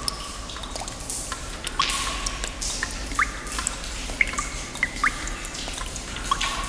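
Water dripping in a cave: drops falling at irregular intervals, each a short rising plink, over a steady hiss.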